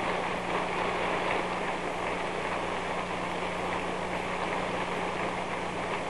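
Audience applauding steadily in an arena, a dense even crackle of many hands clapping, over a constant low hum in the old broadcast recording.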